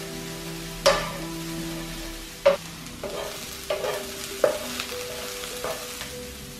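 Wooden spatula stirring onions and soy protein frying in a nonstick pan: a steady sizzle with several sharp knocks of the spatula against the pan.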